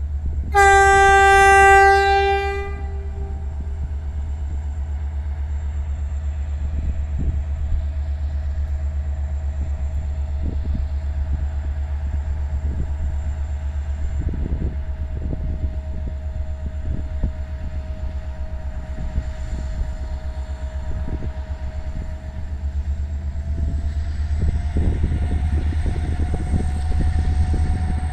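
Diesel locomotive sounds one horn blast about half a second in, lasting about two seconds, then its engine runs with a steady low rumble. Near the end the engine note rises and grows louder.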